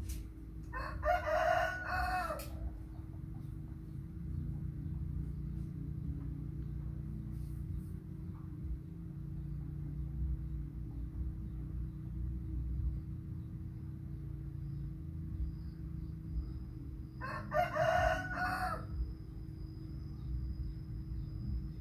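A rooster crowing twice, each crow about a second and a half long, once about a second in and again about seventeen seconds in, over a steady low hum.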